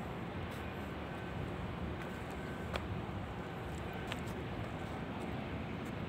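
Steady outdoor city ambience: a low rumble of distant traffic, with a faint reversing alarm beeping about once a second in the first half and a few light clicks.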